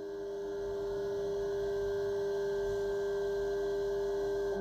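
Haas VF-2SS CNC mill spindle spinning at a steady speed: a steady high whine with overtones, over the hiss of flood coolant.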